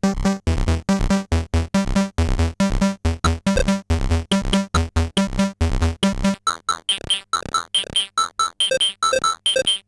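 Soulsby miniAtmegatron 8-bit synthesizer playing a fast, even run of short, buzzy pitched notes. About six seconds in, the deep bass notes drop out and higher, thinner bleeping notes carry on.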